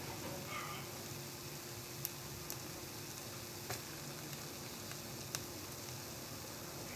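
Egg sizzling in a waffle maker, a steady hiss with a few sharp pops.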